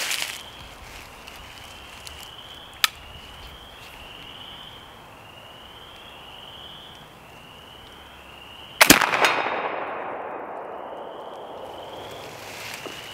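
.54 calibre Kibler Woodsrunner flintlock rifle, loaded with 65 grains of 2F black powder, firing a single loud shot about nine seconds in, with a long echoing tail that dies away over a few seconds. A single sharp click comes about three seconds in.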